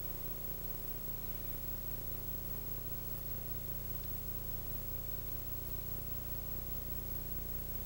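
Steady low electrical hum over an even hiss, with no distinct clicks or knocks: background noise of a recording copied across several VHS generations.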